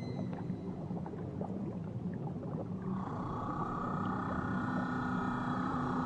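Humpback whale song heard underwater over a steady low rumble of water noise. About halfway through, a long, steady high note begins, joined a little later by a lower held note.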